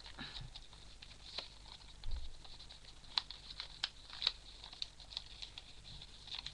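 A sheet of origami paper being folded and creased by hand: scattered small paper rustles, crinkles and taps at an irregular pace, over a faint steady fan hum.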